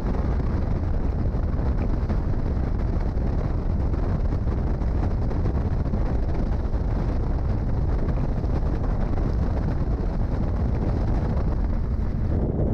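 Wind buffeting the microphone on a bass boat running across open water, a steady low rumble with a rushing hiss above it.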